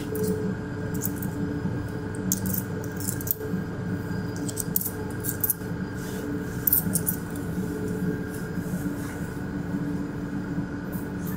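S-Bahn train running at speed, heard from inside the carriage: a steady rumble with a low hum, and short clicks and rattles scattered throughout.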